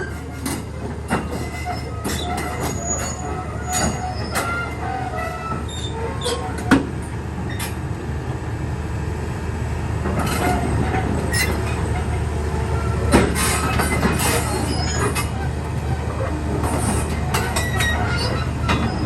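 Caterpillar 320D2 excavator's diesel engine running steadily while its steel tracks clank and squeak as it climbs onto a trailer, with two sharp knocks, about seven and thirteen seconds in.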